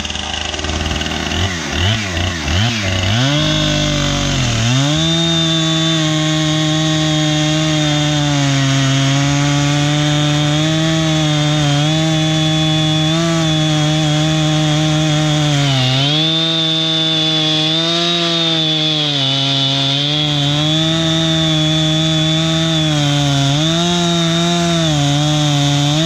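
Husqvarna 455 Rancher two-stroke chainsaw, mounted in a Granberg Alaskan small log mill, revved up and down a few times, then held at full throttle as it rips lengthwise through a pine beam. Its engine note sags briefly a couple of times as the chain takes load.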